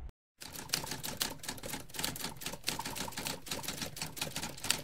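Typewriter keys clacking in a rapid, uneven run of strikes, starting about half a second in after a brief silence.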